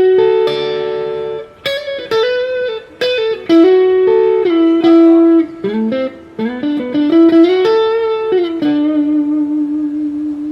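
Electric guitar, a PRS SE Custom 22 Semihollow played through a Mesa Triple Crown TC-50 amp head. It plays a melodic single-note lead line and ends on a long sustained note with vibrato, starting about eight and a half seconds in.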